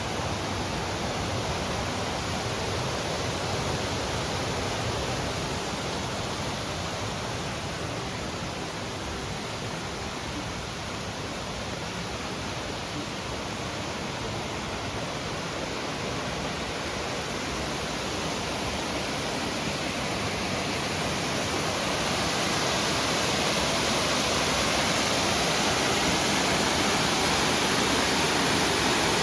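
Steady rushing water of a mountain stream or waterfall, a continuous even hiss that grows a little louder and brighter about two-thirds of the way through.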